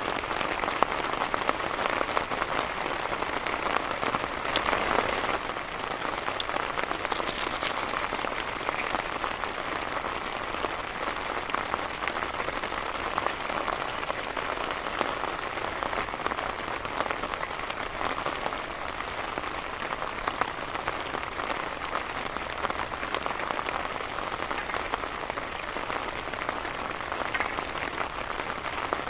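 Heavy rain falling steadily in a dense patter of drops, easing slightly after about five seconds.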